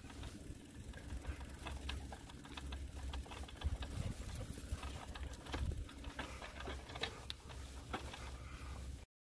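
Bicycle rolling over a bumpy dirt trail, with irregular rattling and ticking from the bike and a low rumble of wind on the microphone; the sound cuts off abruptly near the end.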